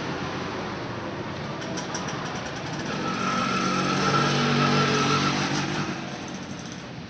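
A motor vehicle's engine passing on the street, growing louder in the middle and fading away near the end.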